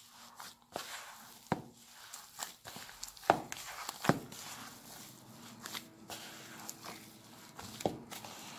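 A gloved hand kneading minced chicken with breadcrumbs in a bowl: irregular soft squishes and glove rustling, with a few sharper taps, the loudest about three and four seconds in.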